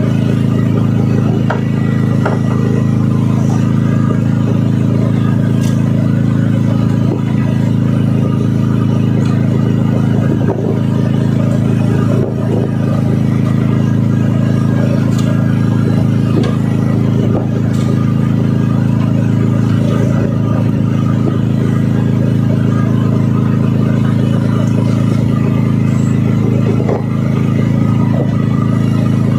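An engine on the squid-fishing boat running steadily at constant speed, a loud, unchanging low drone.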